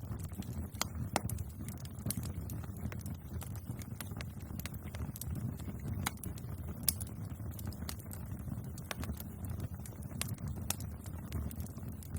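Bonfire burning: a steady low rumble of flame with irregular sharp crackles and pops of burning wood, a couple of louder pops about a second in and near the middle.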